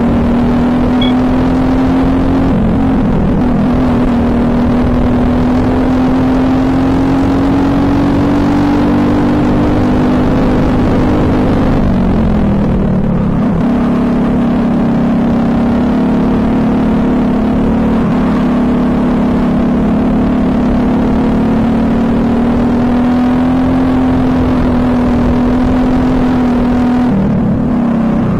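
Briggs & Stratton LO206 single-cylinder four-stroke kart engine running hard at racing speed, heard from the driver's seat with wind noise. Its pitch climbs slowly along the straights and falls briefly when the throttle is lifted for corners: once a couple of seconds in, longest about midway, and again near the end.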